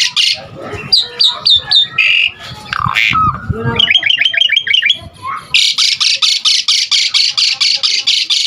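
Javan pied starling (jalak suren) singing a varied, mimicry-filled song. A few short descending whistles and a quick run of about ten trilled notes give way, about two-thirds through, to a long run of rapid, harsh, repeated chattering notes, about five a second.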